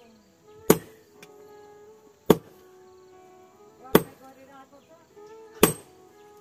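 Sledgehammer striking red-hot steel held in tongs on an anvil, four sharp blows about a second and a half apart, as a khukuri blade is forged by hand.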